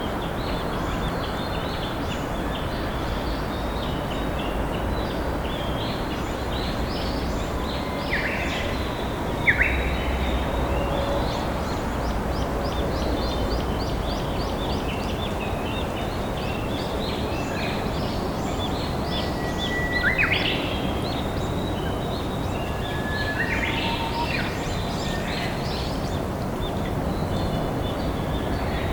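Steady rush of a flowing river under a constant chatter of small wild birds chirping, with a few louder clear whistled calls about a third of the way in, about two-thirds in, and again shortly after.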